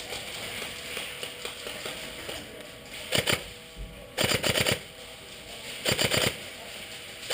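Airsoft electric gun firing three short full-auto bursts of rapid mechanical clicks, the first about three seconds in and the others about a second apart.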